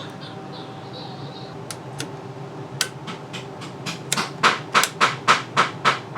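Sharp mechanical clicks: a few scattered at first, then a steady run of about three a second from around four seconds in.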